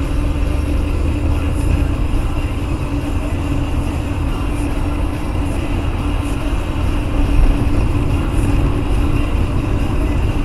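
Steady road and engine noise of a moving car heard from inside the cabin, a constant low rumble with no sudden events.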